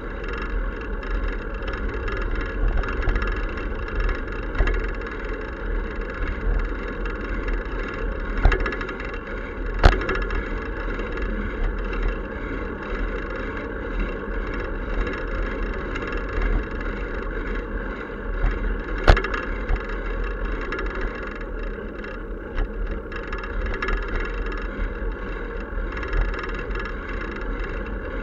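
Steady wind and road rumble from riding a bicycle with the camera mounted on the bike, with a few sharp knocks, the loudest about ten seconds in and another near nineteen seconds.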